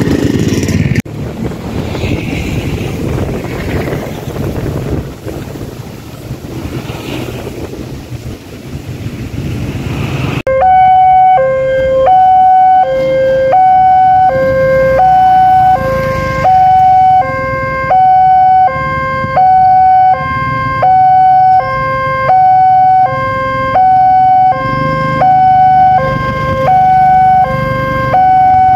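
Railway level-crossing warning siren, an electronic two-tone alarm with a tinny, shrill sound, switching on about ten seconds in and alternating steadily between a lower and a higher tone. It warns that a train is approaching and the crossing barrier is closing. Before it comes on there is a rumbling background noise.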